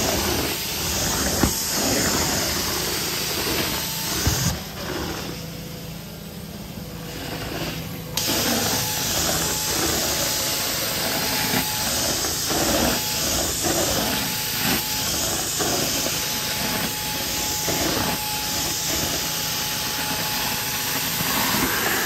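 Carpet extraction vacuum running through a stair tool as it is drawn over carpeted stair treads: a steady suction noise with spray hiss and a faint steady whine. It drops noticeably quieter for a few seconds about five seconds in.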